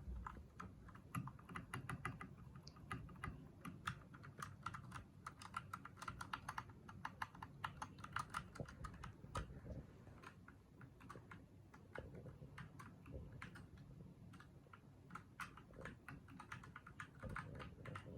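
Typing on a Husky Blizzard 60% mechanical keyboard with red switches: quiet, rapid key presses in runs, thinning out for a few seconds about ten seconds in before picking up again.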